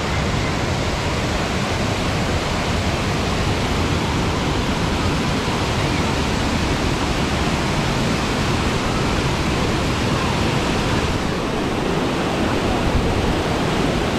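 Loud, steady rush of falling water, such as a mountain waterfall or torrent.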